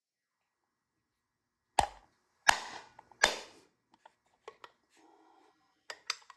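Hammer blows driving a new crankshaft oil seal into its bore in a Briggs and Stratton engine's crankcase: three hard, ringing strikes, then several lighter taps as the seal bottoms out in its seat.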